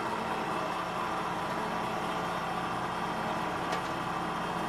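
Compact tractor's engine running steadily at idle, driving the hydraulics of a rear-mounted backhoe whose control levers are being worked. A single light click about three and a half seconds in.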